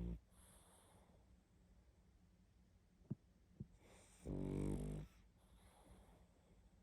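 Pug snoring in its sleep, loud and pitched. One snore cuts off just after the start, two small clicks come in the middle, and a second snore about four seconds in lasts nearly a second. A soft hiss follows each snore.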